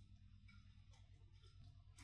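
Near silence: a steady low electrical hum with a few faint, soft clicks.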